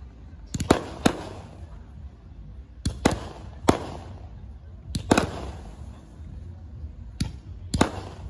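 Aerial fireworks bursting overhead: about ten sharp bangs at irregular intervals, some in quick pairs, each fading in a short echo.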